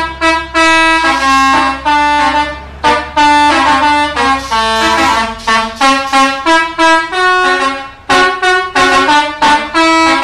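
Bus telolet horn, a multi-tone musical air horn on an Indonesian bus, playing a fast melody of short, chord-like blasts that change pitch several times a second.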